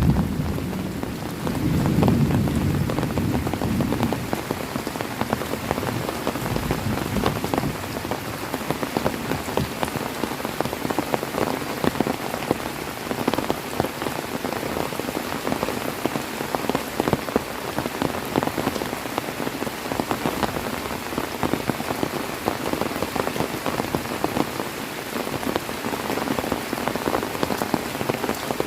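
Heavy rain falling steadily, a dense patter of drops on surfaces. A low rumble of thunder dies away in the first few seconds.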